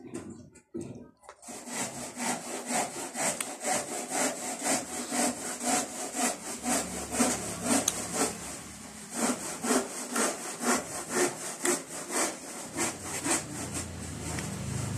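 Close-miked chewing of fibrous santol fruit flesh: a steady crunching rhythm of about two to three chews a second, starting about a second and a half in.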